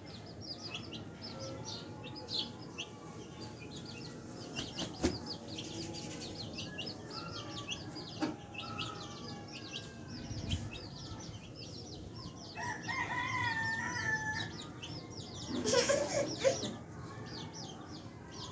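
Chicks peeping steadily in many short, high peeps. About two-thirds of the way through an adult chicken gives a drawn-out wavering call, followed shortly by a louder, harsher call.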